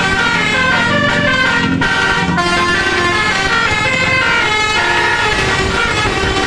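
Bus 'telolet' musical horn playing a continuous melody, its tones stepping quickly from pitch to pitch.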